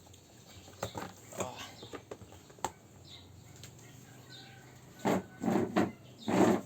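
Hands handling packaging and the tablet: scattered light clicks and rustles, then a quick run of loud rustling bursts about five seconds in.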